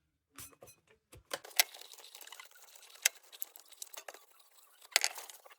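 Parts of a tin lantern being handled on a workbench: scattered light clicks and taps, with sharper clicks about a second and a half in, three seconds in and near the end.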